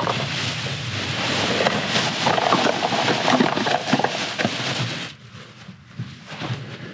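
Black plastic bin liner rustling and crinkling close to the microphone, loud for about five seconds, then dropping off sharply.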